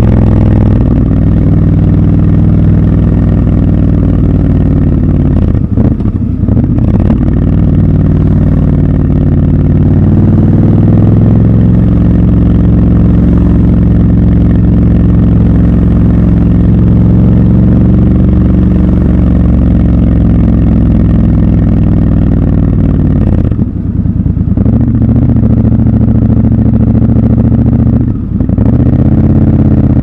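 Triumph Scrambler 1200 XC's 1200 cc parallel-twin engine running under way, recorded raw from the bike. The engine note holds steady for long stretches and drops briefly where the throttle is rolled off, once about a fifth of the way in and twice near the end.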